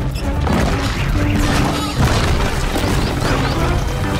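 Action film soundtrack: dramatic music mixed with heavy booms and crashing destruction sounds over a deep rumble.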